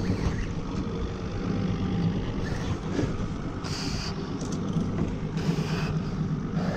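Boat engine running steadily with a low hum, with wind and water noise and two brief hissing sounds about four and five and a half seconds in.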